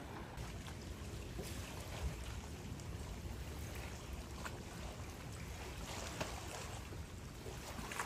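Wind rumbling on the microphone over gentle sea waves lapping at a rocky shore, with a few faint taps.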